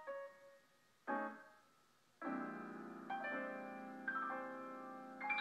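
Background piano music: a single struck note about a second in that fades away, then held chords from about two seconds in, with a new chord coming in roughly every second.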